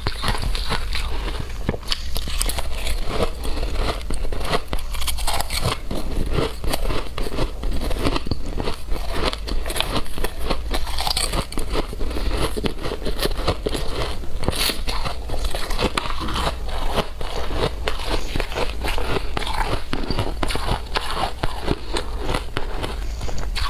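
Shaved ice being bitten and chewed close to the microphone: a continuous, dense, irregular crunching and crackling.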